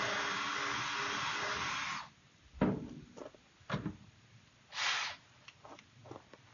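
Cordless drill running steadily for about two seconds, boring a bolt hole larger, then stopping. A few sharp knocks and clicks and a short rasp follow as the drill and work are handled.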